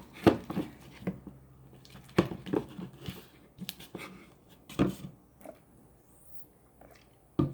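Slime being stirred with a spatula in a bowl as activator is mixed in: scattered sticky clicks and taps, a handful spread over a few seconds.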